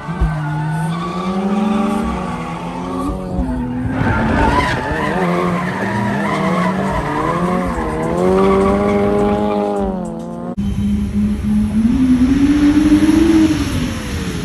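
A Lexus SC300's turbocharged 1JZ-GTE inline-six revs up and down while its tyres squeal and skid through a drift. The sound changes abruptly twice, a few seconds in and again near the end.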